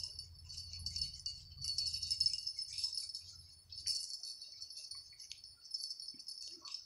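Steady, bright jingling like small bells or chimes, with a few short dips, over a low rumble that stops about four seconds in.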